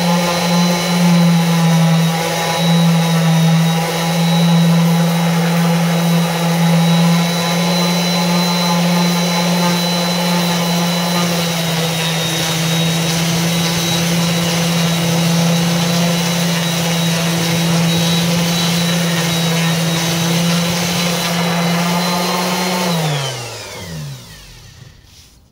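Random orbital sander running steadily as it sands a wooden board, then switched off near the end, its hum falling in pitch as it spins down to a stop.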